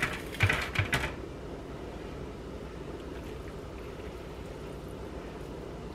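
Steady low hum of kitchen room tone, with a few brief, louder sounds in the first second.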